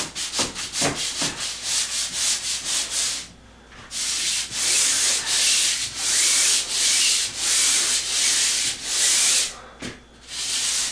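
Pole sander's sandpaper scrubbing back and forth across a drywall ceiling. Quick short strokes come first, then a brief pause about three seconds in, then slower, longer strokes, with another short break near the end.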